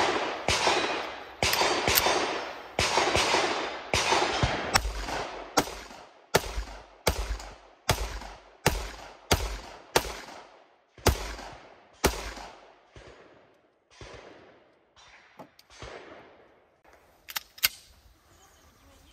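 Semi-automatic pistol fired in a quick string of about twenty shots, roughly two a second, each shot ringing out over the range. The string stops about twelve seconds in and is followed by a few fainter, scattered shots.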